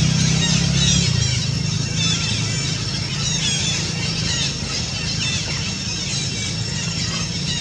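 A steady low motor hum, louder in the first second, with many short high chirping calls over it.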